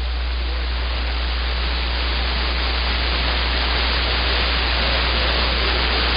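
Steady radio static hiss from a receiver with no one transmitting, over a constant low hum.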